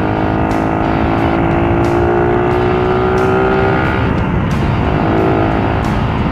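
Suzuki Raider R150's single-cylinder engine pulling under steady acceleration, its pitch rising slowly, then easing off about four seconds in and picking up again, with wind rushing over the microphone.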